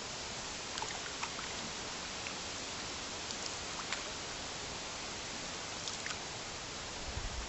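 Steady hiss of stream water around a paddled canoe, with scattered small drips and ticks and a few low thumps near the end.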